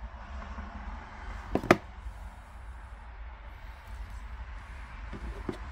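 Two sharp clicks about a second and a half in, then a few fainter ones near the end, from a razor blade working against a small plastic trim piece to lift the edge of its adhesive backing, over a steady low hum.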